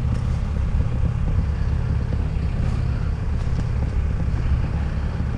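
Diesel engine of heavy equipment running steadily, a low drone with no change in speed.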